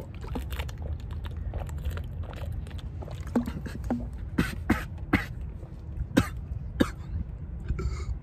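A person gulping water from a plastic bottle: a run of short, sharp swallowing clicks that come louder and closer together from about four seconds in. A steady low rumble runs underneath.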